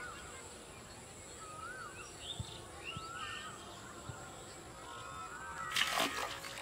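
Small birds calling repeatedly in short warbling phrases, over a steady thin high-pitched drone. About six seconds in, a sharp splash as a hooked fish is jerked up out of the canal water.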